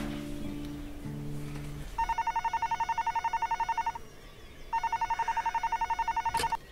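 Landline telephone ringing twice, each ring a fast trilling tone lasting about two seconds with a short gap between; the second ring cuts off with a click. Soft background music plays during the first two seconds, before the ringing starts.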